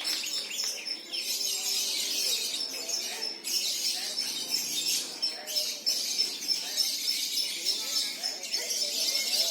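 Many lovebirds chattering and trilling at once, a dense, continuous high-pitched twittering with a quickly repeated thin high note running through it, over a faint murmur of people's voices.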